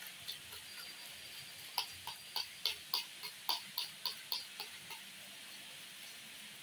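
A run of light, evenly spaced clicks, about three or four a second, starting a couple of seconds in and stopping about three seconds later.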